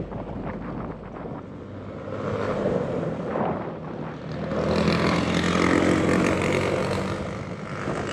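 Wind and road noise picked up by an action camera's microphone on a moving electric skateboard, with traffic noise swelling loudest through the second half.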